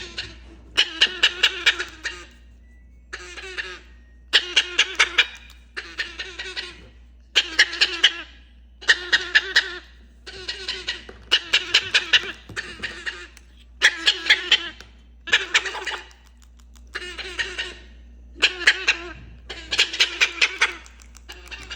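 A pet parrot imitating laughter over and over: a long series of short laughs, one every second or so, each made of a few quick 'ha' notes.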